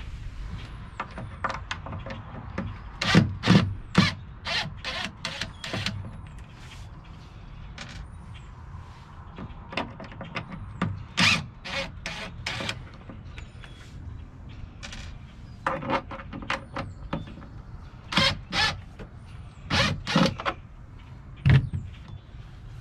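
DeWalt cordless drill-driver backing out the hinge screws of a wooden cabinet door, with short runs of the drill among a string of sharp clicks and knocks as the drill, screws and door are handled.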